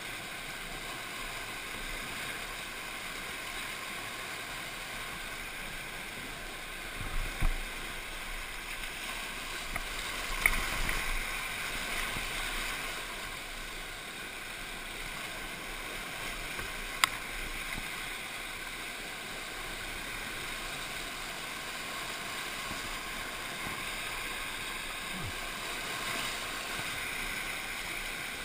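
Steady rush of the flood-swollen river's whitewater around a kayak running rapids. A few low thumps, loudest about seven seconds in, and two sharp knocks break through it.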